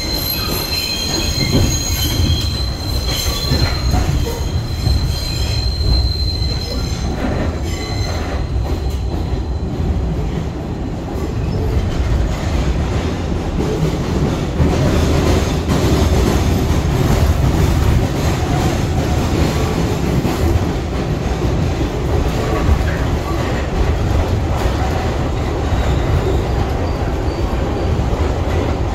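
New York City subway train running, heard from inside the car: a steady rumble, with a high wheel squeal for the first seven seconds or so. From about halfway the rumble and clatter grow louder as the train crosses over the switches from one track to another.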